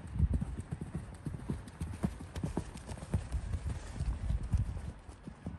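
Hoofbeats of a black pony moving close by on the sand arena surface: a steady run of dull, thudding footfalls.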